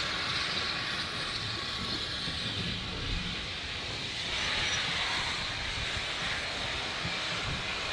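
Steam locomotive letting off a steady hiss of steam over a low rumble, the hiss easing about four seconds in.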